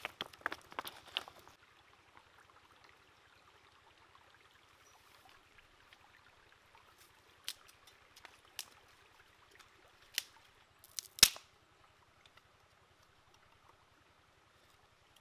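River stones clacking against each other as rocks are tossed, for about the first second. Then, over a faint steady hiss of running water, four sharp snaps of dry sticks being broken by hand, spaced a second or so apart, the last the loudest.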